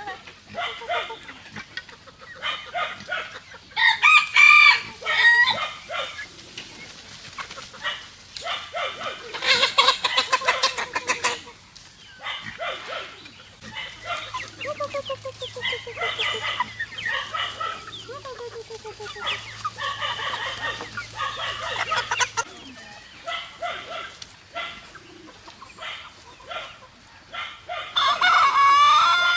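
Chickens clucking, with louder calls, rooster crows among them, standing out about four seconds in, around ten seconds, and again near the end.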